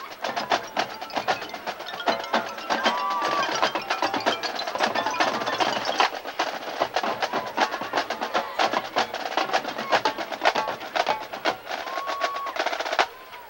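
Marching band drumline playing a percussion feature: snare drums, tenor drums and marching bass drums in fast strikes and rolls. The playing stops suddenly near the end.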